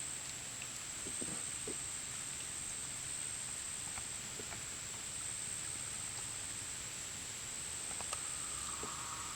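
Steady, high-pitched drone of insects calling, with scattered faint clicks and, near the end, a second lower buzzing call.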